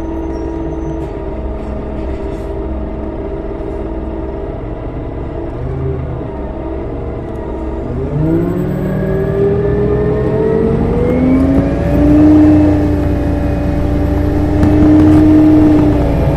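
Detroit Diesel Series 50G natural-gas inline-four engine in a NABI transit bus, idling steadily, then about eight seconds in its speed rises smoothly over a few seconds and holds at a higher, louder pitch while the bus stands still.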